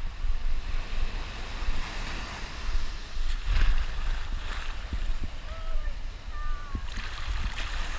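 Heavy ocean surf breaking and washing ashore, with a low rumble and wind buffeting the microphone. The wash swells about 2, 3.5 and 7 seconds in.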